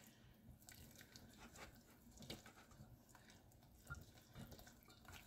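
Faint, irregular soft wet sounds of a silicone-coated whisk stirring milk into a thick roux paste in a stainless steel saucepan.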